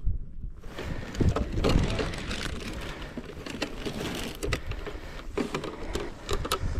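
Irregular crunching and scraping of snow and ice, a dense run of short crackles that starts about half a second in.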